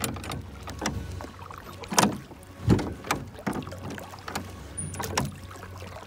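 Plastic boat paddle dipping and splashing in lake water in repeated strokes, with sharp knocks and splashes throughout; the two loudest come about two seconds in.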